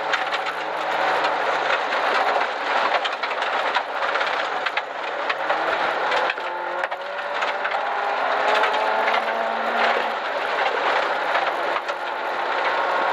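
Rally car engine at full effort, heard from inside the cabin, its pitch climbing and dropping back as it goes up through the gears. Constant clatter and knocks from stones and the rough dirt track hitting the car's underside.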